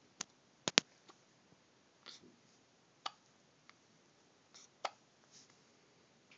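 Hiccups: a series of short, sharp hics at uneven intervals, the loudest a close pair just under a second in.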